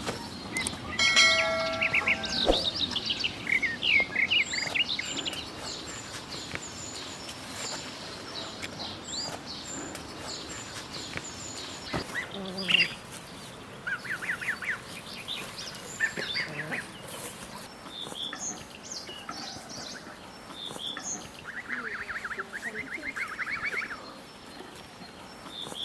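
Small birds chirping and singing, with several rapid trills, and a honking call from domestic fowl about a second in.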